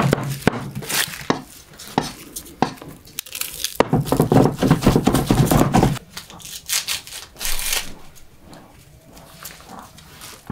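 Dry onion skins crackling and tearing as they are peeled off with a small knife, mixed with a cleaver knocking on a wooden chopping board, in a fast run of strokes around the middle.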